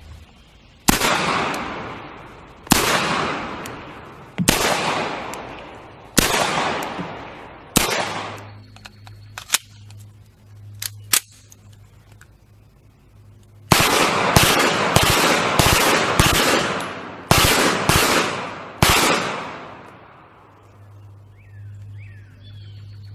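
Mauser C96 pistol firing. There are five single shots about two seconds apart, each with a long echoing tail. A few sharp clicks follow, then a quicker string of about ten shots over some five seconds.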